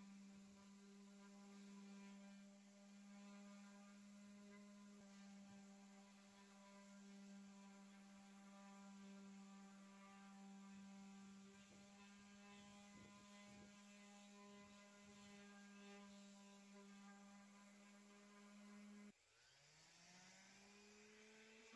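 Electric random orbit sander running steadily against a wooden cabinet panel, a faint, even hum. Near the end it drops out abruptly and then spins back up with a rising whine to a steady speed.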